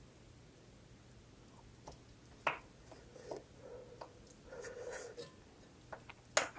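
Eating sounds of a person having ramen: sharp mouth clicks and smacks from about two seconds in, a brief rustling patch a little past the middle, and the loudest click near the end.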